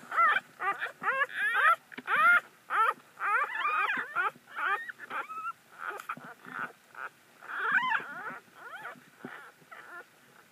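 Newborn puppy squealing and whimpering in short, high cries that rise and fall in pitch, several a second. The cries thin out about halfway through, with another loud run about eight seconds in.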